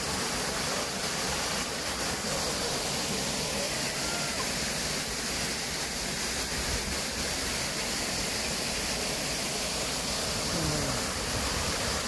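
Steady rush of falling water from a waterfall and a stream cascading over boulders.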